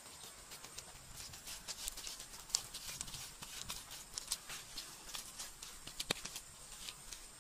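Hands slapping and pressing wet mud onto a bamboo stove frame: irregular soft pats and squelches with small clicks, a sharper slap about two and a half seconds in and another about six seconds in.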